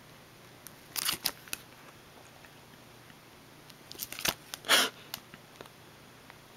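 Printed photographs being handled and shuffled by hand: short crisp rustles and clicks of paper, one cluster about a second in and a louder one around four to five seconds in.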